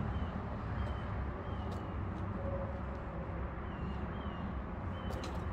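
Outdoor background: a steady low rumble, with faint short bird chirps every second or so and a few light clicks.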